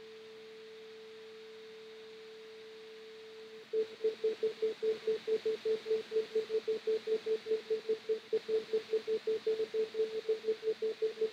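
A steady pure electronic tone, then about a third of the way in it starts pulsing on and off at the same pitch, about five beeps a second, and grows louder.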